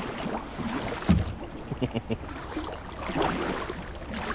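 Kayak paddling through thin river ice: knocks and clicks of paddle and ice pieces against the hull, with one louder thump about a second in.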